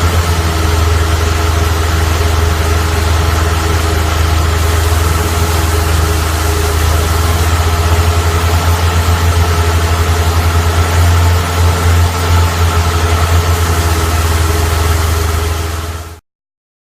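Longtail boat engine running steadily with a strong low hum, over a broad hiss. The sound fades out quickly about sixteen seconds in and cuts to silence.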